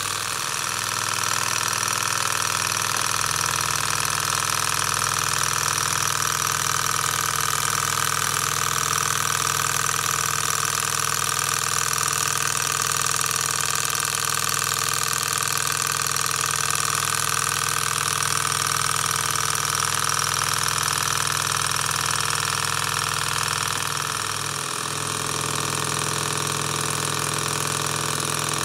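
PM Research Peanut Rider Stirling engine running steadily: an even mechanical hum from the engine turning over. It dips briefly near the end.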